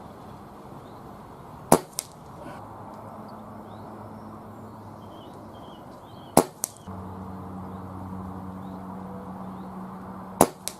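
Three shots from a pre-charged pneumatic air rifle firing .177 pellets, about four seconds apart. Each sharp crack is followed about a quarter second later by a fainter click. Steady wind noise runs underneath, and a low steady hum starts about two-thirds of the way through.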